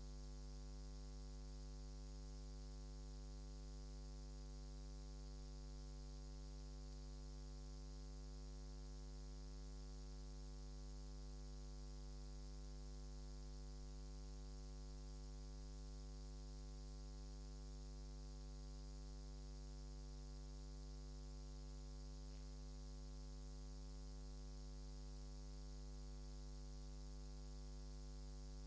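Steady electrical mains hum: a low, unchanging buzz with many evenly spaced overtones, over a faint hiss.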